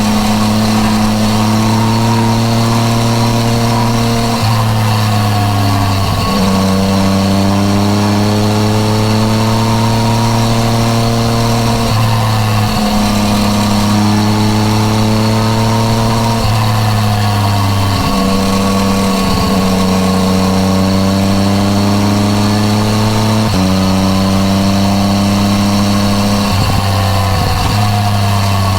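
Yamaha MT-09 Tracer's three-cylinder engine running under way through an aftermarket Akrapovič exhaust. Its note rises gently in pitch, broken by about eight sudden steps in pitch as gears are changed, over steady rushing wind.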